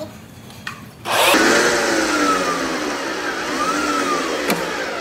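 Pipe Master pipe-threading machine starting up about a second in and running as it twists two steel rods together, its motor whine falling, rising again and falling. A sharp click near the end.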